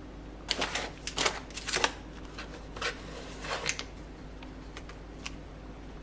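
Plastic food packaging crinkling in the hands, in a cluster of sharp rustles over about three seconds, followed by a few faint ticks.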